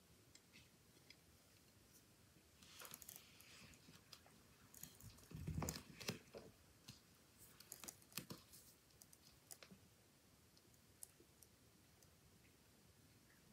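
Faint, irregular crunches and clicks of a Brazilian white knee tarantula chewing a mantis, with the loudest cluster about halfway through.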